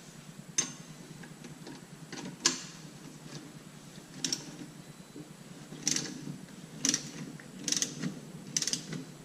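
Sharp metallic clicks, one every second or so and sometimes in quick clusters, from the cap nut removal tool and wrench working the cap nut of a Delphi E1 diesel unit injector loose.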